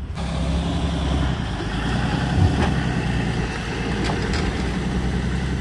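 An engine running steadily at low revs, with a low hum.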